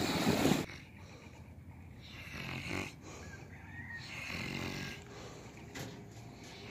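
A man snoring in his sleep: two slow snores about two seconds apart. Wind and surf noise cut off suddenly at the start.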